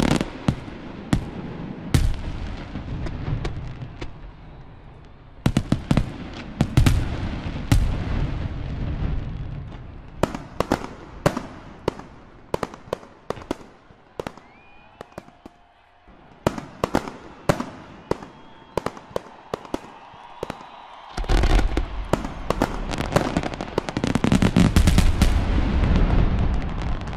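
Fireworks display: repeated sharp bangs and crackling with deep rumbling thuds coming in waves. It eases off for a spell in the middle, and the bangs are densest and loudest in the last several seconds.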